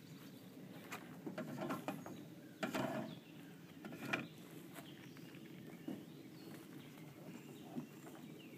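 Light footsteps and small knocks of a toddler moving on a hollow plastic play structure, loudest from about one to three seconds in and once more about four seconds in, with birds chirping faintly now and then.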